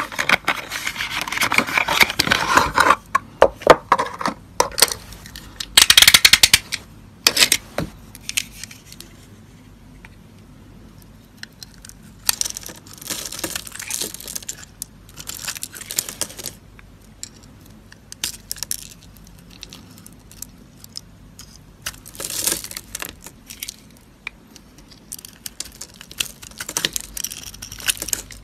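A cardboard soap box is torn open with crackling and crinkling, then a knife carves and scrapes a bar of soap in short bursts, the shavings crunching off.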